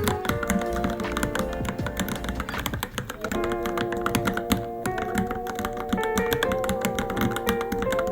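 Continuous fast typing on a Varmilo Minilo mechanical keyboard, an irregular run of key clicks, over background music.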